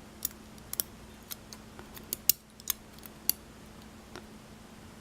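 Light, irregular metallic clicks and ticks of a small tool picking at a stuck pin inside a disassembled pin-tumbler lock's chamber, working it loose.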